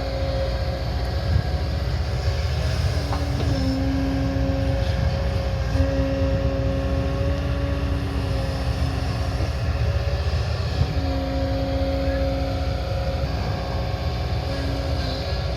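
Diesel engine of an earthmoving machine running under load: a steady low rumble with a whine that cuts in and out and steps up and down in pitch as the machine works.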